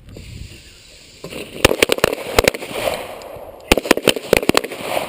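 A line of handguns firing on a range in two ragged volleys: about half a dozen sharp shots starting about a second and a half in, then about half a dozen more some two seconds later. This is the standing round and then the kneeling round from each shooter.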